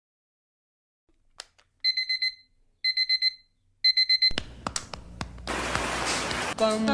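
Digital alarm clock beeping: three bursts of rapid, high-pitched beeps about a second apart. About halfway through, a loud hiss of rain takes over, with a few clicks.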